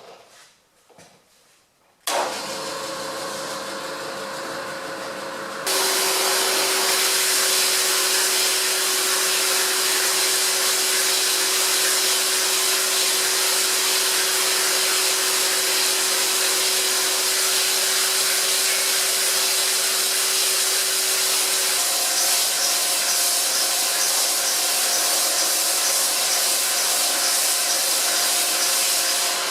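A milling machine starts up about two seconds in. A few seconds later a shop vac switches on and runs loudly and steadily with a humming tone, cooling a bimetal hole saw and drawing off its chips as the saw cuts slowly into half-inch steel. A second, higher tone joins near the end.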